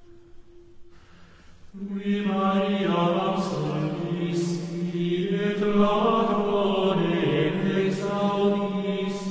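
Slow meditative background music: a chant of long, low held notes that comes in about two seconds in after a quieter start, shifting pitch only a few times.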